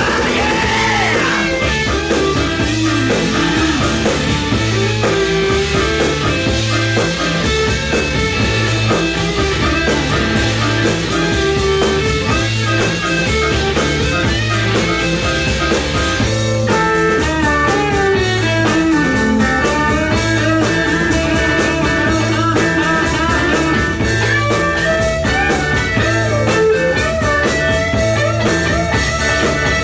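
Rock music: electric guitar lines over a steady beat.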